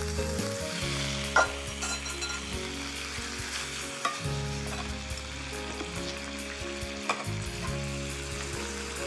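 Sauce-coated chicken thighs sizzling as they fry in a hot skillet over medium heat, a steady hiss with a few sharp pops.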